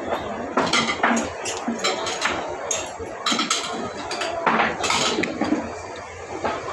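Dishes and cutlery clinking and knocking at a meal table, a string of short sharp clicks scattered through the whole stretch.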